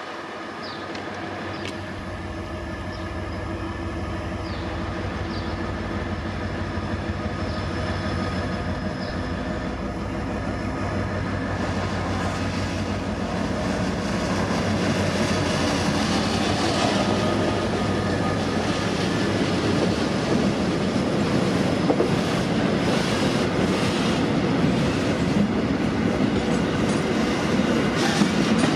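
Diesel freight locomotive D-2352 running under power as it approaches and passes, its engine hum growing steadily louder. From about halfway through, the rumble and clack of the train's wheels take over as the loaded container flatcars roll by.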